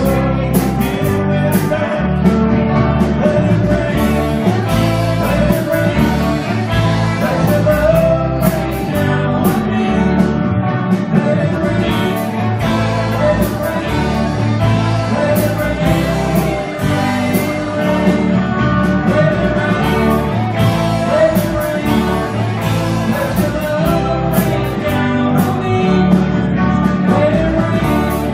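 A live rock band playing steadily: several electric guitars over a drum kit, with a wavering lead line on top.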